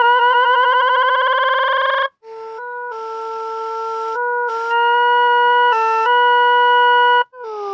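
Synthesized tones from the Desmos graphing calculator. A buzzy tone warbles quickly and rises slightly for about two seconds, then cuts out briefly. It is followed by a steadier held tone that steps up in pitch a few times, with a hissy layer switching on and off, and it cuts off abruptly near the end.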